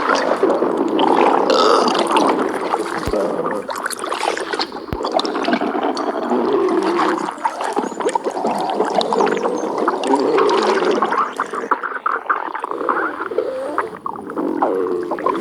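Stomach gurgling: continuous wet gurgles and squelches of digestion, with short squeaky tones that bend up and down.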